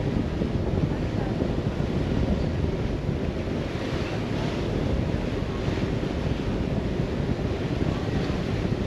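Wind buffeting the microphone aboard a moving ferry, a steady low rush with no distinct events.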